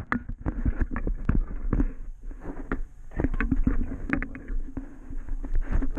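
Handling noise from a GoPro Hero Session camera dangling on fishing line: irregular knocks, bumps and rubbing as it swings against the angler's shirt and the rod, over a low rumble.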